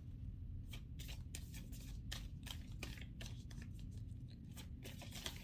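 Oracle cards being handled and shuffled by hand: a run of soft, irregular clicks and riffles from the cards.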